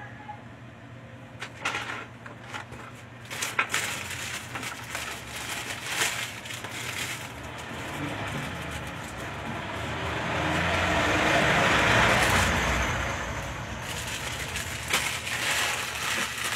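Plastic bags and packaged goods rustling and knocking as stock is handled on the shelves. In the middle a louder rushing noise swells and fades over several seconds.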